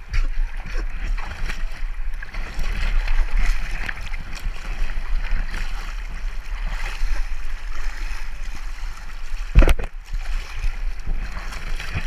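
Fast river water sloshing and splashing right at the microphone, held at the surface while floating in the current, over a steady low rumble. A single sharp knock about three-quarters of the way through.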